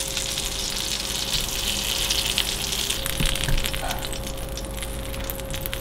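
Food sizzling in a frying pan on a gas stove: a steady hiss flecked with small crackles, easing off somewhat about three seconds in.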